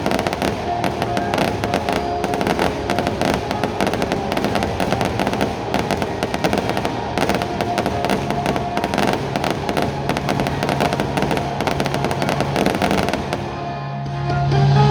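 Dense, rapid crackling of fireworks over a live symphony orchestra. The crackle stops near the end, leaving the orchestra's sustained low notes.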